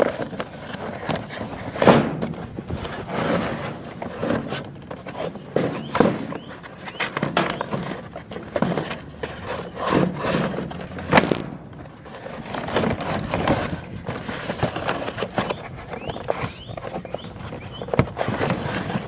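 Cardboard box and packaging being handled and opened: irregular rustling and scraping with scattered knocks, a few of them sharper.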